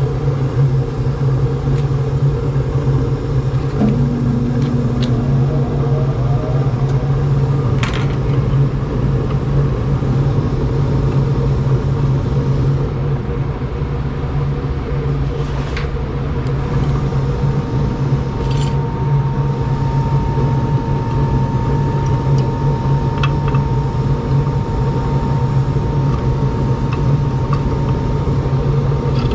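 Rheem gas furnace running with its burners lit: a steady low hum and rumble, with a few light clicks here and there.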